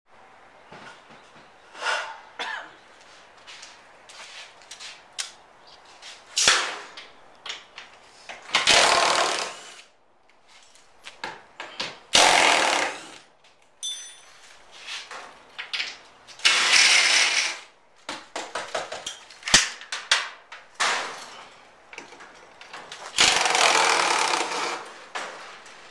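A power tool runs in four short bursts of a second or two each, with many sharp knocks and clatter between them, typical of work on a garage door being replaced.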